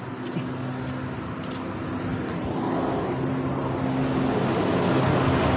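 A truck passing close by at speed on the road: engine hum and rushing tyre and wind noise growing steadily louder as it comes by.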